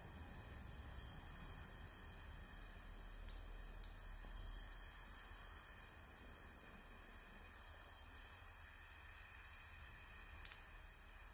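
Quiet, steady hiss of a gas brazing torch flame playing on a bronze fitting during silver brazing, with a few short sharp clicks.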